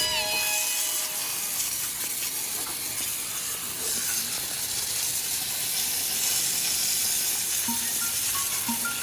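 Water spraying from a garden hose onto a motorcycle, rinsing off degreaser: a steady hiss.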